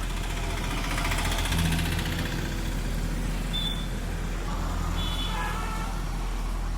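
Street traffic: a steady wash of motor-vehicle noise, with a brief high tone about three and a half seconds in.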